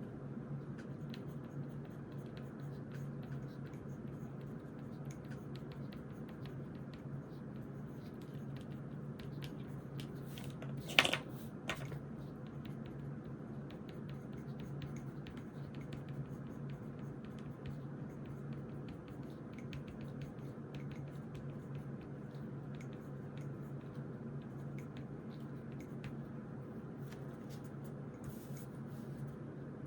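Pen writing on paper: faint scratching strokes over a steady low hum. About a third of the way in, a sharp clack or two, as of something set down on the desk.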